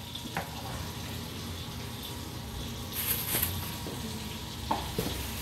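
Food cooking on the stove: a steady low sizzling hiss, with a few light clicks and a brief louder hiss about three seconds in.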